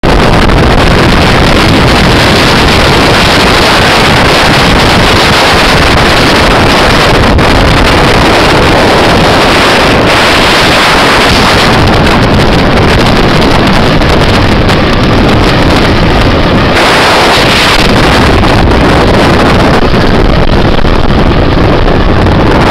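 Wind buffeting the microphone: a loud, steady rush of noise that surges a few times.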